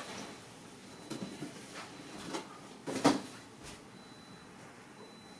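A person getting down onto the floor with a strap and pillow: a few scattered soft knocks and bumps, the loudest about three seconds in, in a small room.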